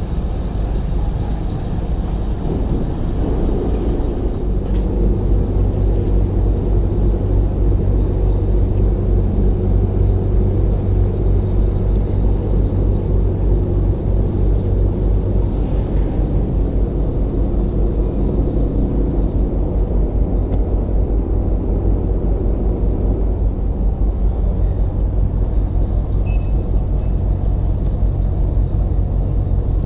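Ferry's diesel engines running with a steady low drone, building up a few seconds in as the boat pulls away from the pier.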